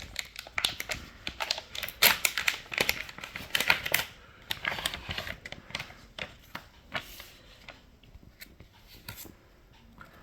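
Plastic packaging and a plastic phone case being opened and handled: a quick run of small clicks, crinkles and rustles, busiest in the first half and thinning out near the end.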